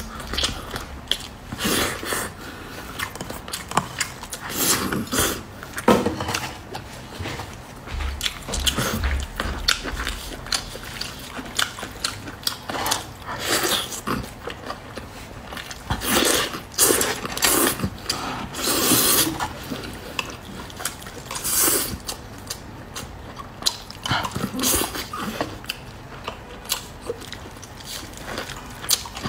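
Close-miked eating sounds: wet chewing, biting and lip smacking on soft braised meat, with short sticky crackles as the meat is torn apart by gloved hands.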